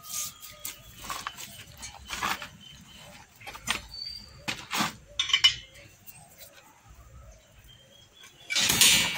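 A flat steel hand rebar bender clinking and scraping against a corrugated steel reinforcing bar as the bar's end is bent into a hook, in irregular knocks. A louder, longer noise comes near the end.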